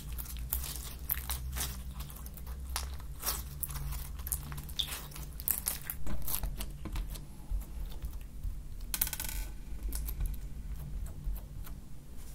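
Foam-bead slime (floam) squeezed and pressed by hand, giving a stream of sharp crackles and pops as the beads crunch. The crackles are densest in the first half and thin out later.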